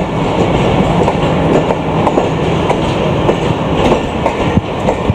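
Passenger coaches of an arriving Pakistan Railways express train rolling past a platform. The wheels click irregularly over rail joints above a steady rumble.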